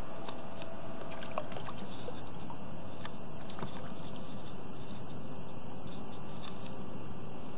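River water running: a steady rushing with many small scattered clicks and ticks.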